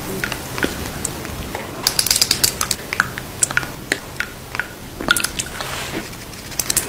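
Close-miked wet lip and mouth sounds: sticky clicks and smacks as lip product is worked onto the lips, an irregular run of sharp clicks, thickest about two seconds in and again around five seconds.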